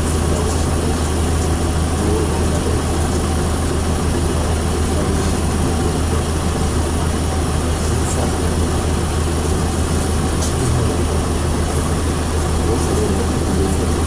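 PAZ-32054 bus engine idling steadily while the bus stands still, heard from inside the passenger cabin as an even low hum.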